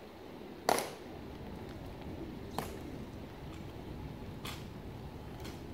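Sharp heel clicks of Tomb Guard sentinels' metal-tapped shoes striking the stone plaza as they march, four clicks about two seconds apart, the first the loudest, over a steady outdoor hush.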